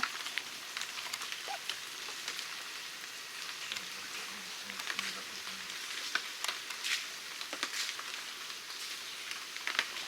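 Rain falling on swamp foliage: a steady hiss with scattered sharp ticks of individual drops.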